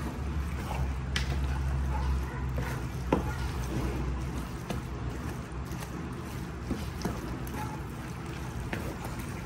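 Wooden spoon stirring a thick fish-and-vegetable hash in a large aluminium pot, scraping through the mixture and knocking against the pot now and then, over a steady low hum.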